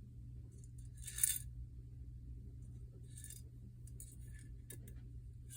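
Small metal lock pins and tools clinking and scraping as they are handled. A brief bright scrape about a second in is the loudest sound, a second follows about three seconds in, then a few light clicks.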